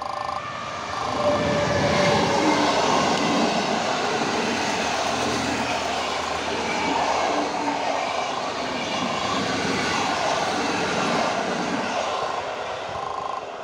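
Passenger train hauled by an EU160 electric locomotive passing close by: a loud rush of wheels and coaches on the rails that builds about a second in and eases off near the end.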